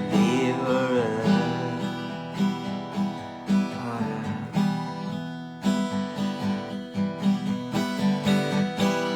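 Music: a devotional song's strummed chord accompaniment, with the sung word "deliverer" ending about a second in, then a short instrumental stretch.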